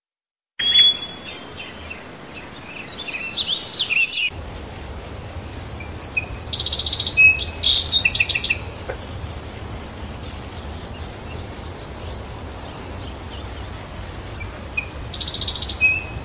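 Birds chirping and calling over a steady outdoor background hiss. Short chirps come in the first few seconds, then a rapid trill about six and a half seconds in and another near the end.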